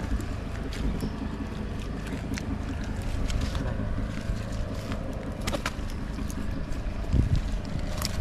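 A steady low engine drone, with scattered small clicks and rustles as a wet fishing net is handled on the muddy bank.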